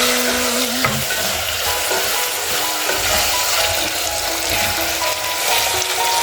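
Onions sizzling as they fry in a pan, with background music playing over it.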